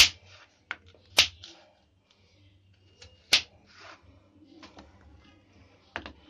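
Kitchen knife slicing through peeled raw potato and knocking on a plastic cutting board: a few sharp, irregular knocks, the loudest right at the start, about a second in and just past three seconds, with softer handling sounds between.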